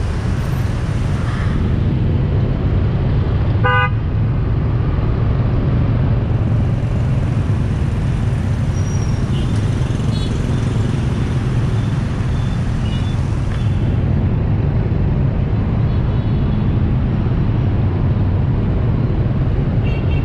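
Dense city traffic of motor scooters and cars, a steady low engine rumble, with one short vehicle horn honk about four seconds in and a few faint beeps further off.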